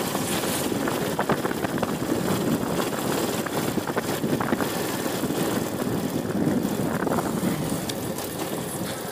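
Yamaha motorcycle engine running at a steady riding speed, with wind and road noise on the microphone.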